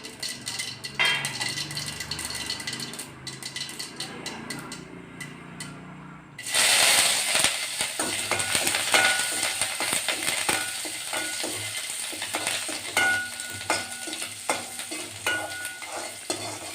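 Mustard seeds, curry leaves and chillies frying in hot ghee in a kadai, sizzling while a spatula stirs and scrapes the pan. The sizzle is quieter at first, then jumps sharply louder about six seconds in and stays loud.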